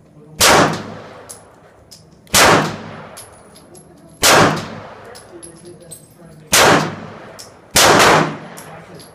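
Six 9mm pistol shots from a Smith & Wesson SD9VE, spaced about two seconds apart with the last two in quick succession, each followed by a long echoing decay.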